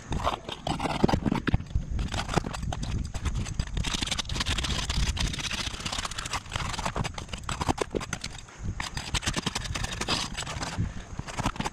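Steel flat bar worked under asphalt roof shingles: scraping and a run of irregular knocks and clacks as the shingles are pried up and their nails worked loose.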